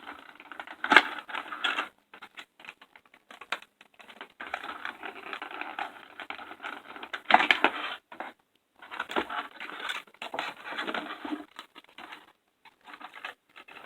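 Plastic figure packaging being handled and opened: irregular rustling and scraping with scattered clicks, two louder sharp clicks about a second in and past the middle.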